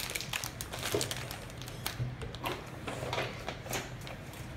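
Cardboard snack box and plastic candy wrappers being handled and rummaged through: irregular crinkling with quick small clicks and taps.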